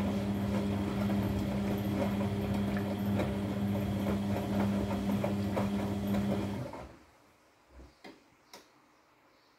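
Front-loading washing machine running its wash cycle: the drum motor hums steadily as the drum tumbles the wet laundry, then stops about seven seconds in. A few faint clicks follow while the drum rests.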